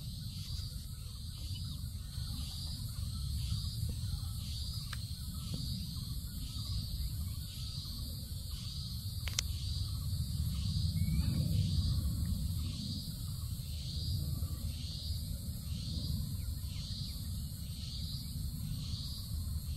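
Insects chirping in a steady rhythm, roughly one high chirp a second, over a continuous high-pitched insect hum, with a low rumble underneath that swells about halfway through.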